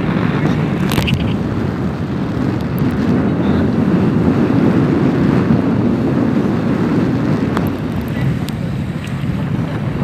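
Steady wind buffeting the phone microphone on a yacht's deck, with sea water washing past the hull underneath, and a few faint clicks.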